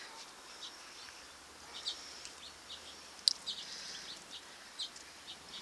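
Small birds chirping: short, scattered high chirps, with one louder chirp about three seconds in.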